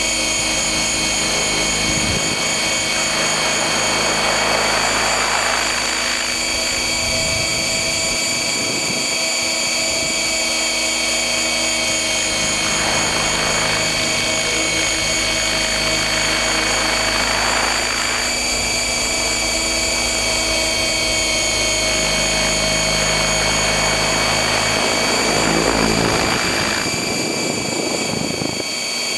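Onboard sound of a stretched T-Rex 600 electric radio-controlled helicopter, heard from a camera slung beneath it: a steady high motor and gear whine over the rotor's whoosh, swelling into rushes of noise several times.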